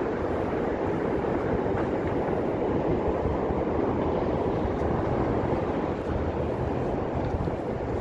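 A steady, unbroken rumble.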